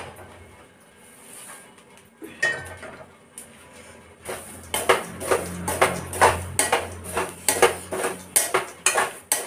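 A steel spoon stirring peanuts through hot roasting salt in a steel kadai. It scrapes and clinks against the pan about twice a second, starting about four seconds in.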